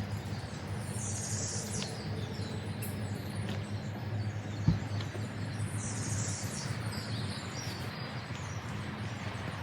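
Birds chirping in short bursts over a steady low rumble, with a single knock about halfway through.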